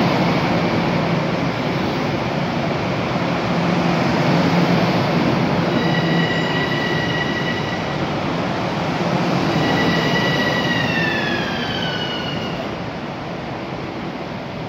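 Long Island Rail Road M7 electric multiple-unit train running in along the platform: a steady rolling rumble of the passing cars. About six seconds in, a high whine joins it and slides down in pitch as the train slows.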